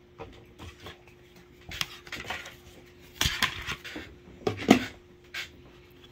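Plastic Impressions mixing bowls being handled: scattered light knocks and clatters of plastic on plastic as a bowl is lifted and set down and a seal fitted onto the large bowl. The loudest knocks come a little after three seconds in and again near five seconds.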